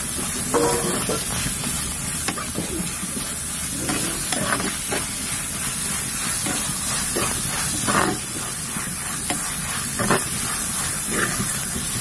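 Sliced onions, tomato and green chillies sizzling steadily in hot oil in a pan while being sautéed. A steel ladle scrapes and stirs through them every second or two.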